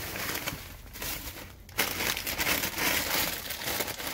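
Plastic bags and packaging crinkling and rustling as a gloved hand rummages through them. It gets louder about two seconds in.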